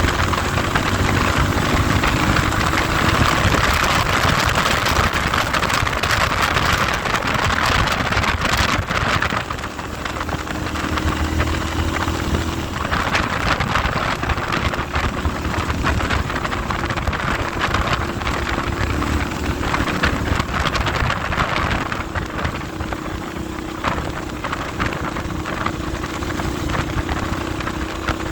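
Heavy wind noise rushing over the microphone, with a vehicle engine running steadily underneath. The wind hiss eases for a few seconds about a third of the way in, then picks up again.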